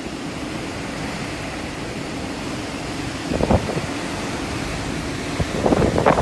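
Typhoon wind blowing steadily, with gusts buffeting the microphone about three and a half seconds in and again near the end.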